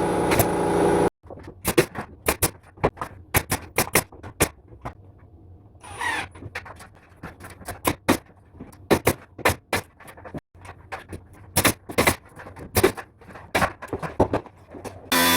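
Pneumatic nail gun firing a long run of sharp single shots at irregular intervals, as trim or framing is nailed up. A loud steady machine noise, such as a power saw, runs for about the first second and cuts off abruptly.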